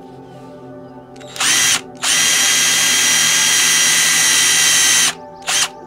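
Power drill with a countersink bit cutting countersinks into plywood: a short burst, then a steady run of about three seconds, then one more short burst.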